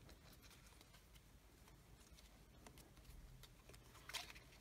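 Near silence with faint soft clicks of playing cards being handled, and a slightly louder card click about four seconds in.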